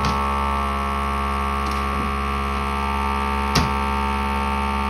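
FoodSaver vacuum sealer's pump running with a steady hum, drawing air from a bag that was cut too short, so it is not sealing. A sharp click about three and a half seconds in.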